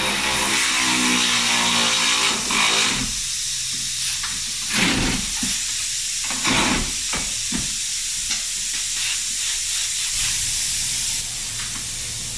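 Compressed air hissing steadily in a tire shop, with several short, louder bursts in the middle.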